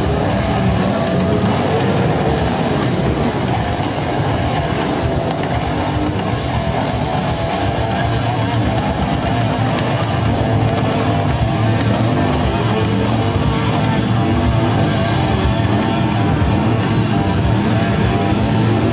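Loud live heavy rock music, with electric guitar and a drum kit playing. A sport motorcycle's engine revs beneath it, rising and falling in pitch, during a stunt burnout.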